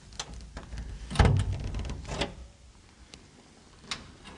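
Footsteps of sneakers on a bare concrete floor: a few separate, uneven steps, the heaviest a dull thud about a second in.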